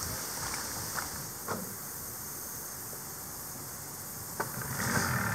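Three faint knocks as people step into and move about a small flat-bottomed boat tied at a dock, over a steady background hiss.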